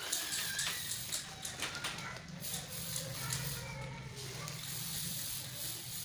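Aerosol spray-paint can hissing as paint is sprayed, in repeated short sprays.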